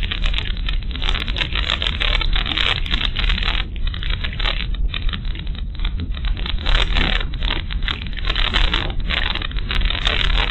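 Cabin noise of a moving car picked up by a dashboard camera's microphone: a steady low rumble of engine and tyres with a dense, irregular crackle from the road surface.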